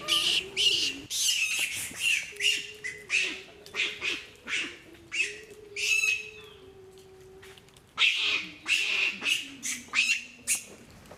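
Long-tailed macaques screeching: a rapid run of loud, shrill squawking calls, roughly two a second, that breaks off about six seconds in and starts again about two seconds later.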